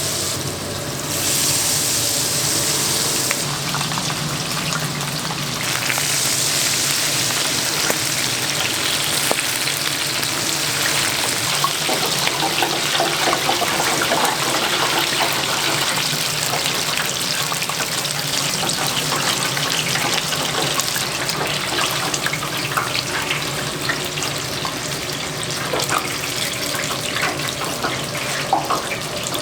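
Chicken deep-frying in hot oil: a steady sizzle with bubbling, and sharp clinks and clatter of kitchen utensils through the second half.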